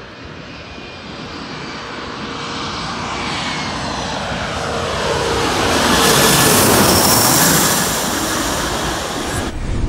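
Twin rear-engined regional jet passing low overhead on final approach, landing gear down. Its turbofan noise builds to its loudest about six to seven and a half seconds in, with a high whine that falls in pitch as it passes, then eases and cuts off suddenly near the end.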